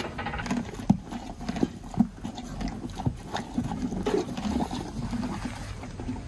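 A horse eating a mixed feed of muesli and carrot from a manger: chewing with irregular knocks about once or twice a second.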